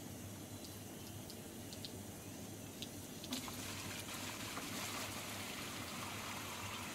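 Water poured from a plastic bucket into a plastic tub: a steady rushing splash that starts about three seconds in and keeps on, after a few faint clicks over a low hum.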